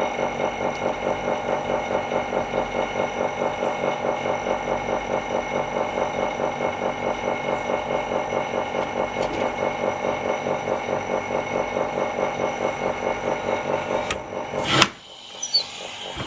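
Small electric vacuum pump of an LCD polarizer laminating machine running with a steady pulsing hum. It stops near the end with a click and a short clatter.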